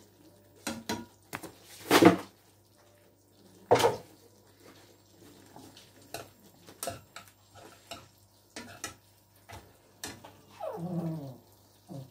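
Metal spoon clinking and scraping against a frying pan as gravy is spooned over lamb chops: scattered sharp clinks, the loudest about two seconds in. Near the end there is a short whine that falls in pitch.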